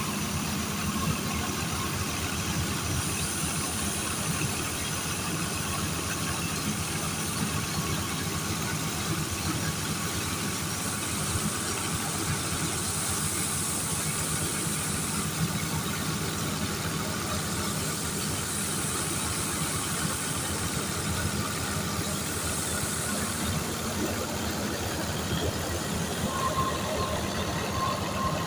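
Engine-driven wheat thresher running steadily, a continuous mechanical hum with a rapid low pulsing.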